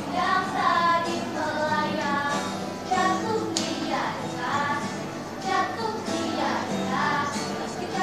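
Four schoolgirls singing a pop song together into microphones, accompanied by an acoustic guitar.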